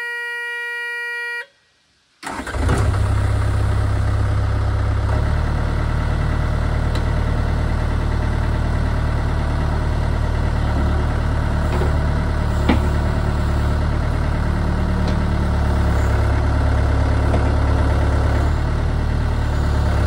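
A Caterpillar 307 mini excavator's cab warning buzzer sounds a steady beep for about a second and a half, then its diesel engine starts about two seconds in and settles into a steady run, a little stronger from about five seconds in.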